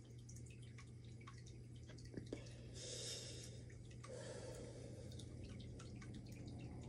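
Quiet room with a low steady hum and faint scattered clicks. A person breathes out softly twice, about three and four seconds in, after a drag on a cigarette.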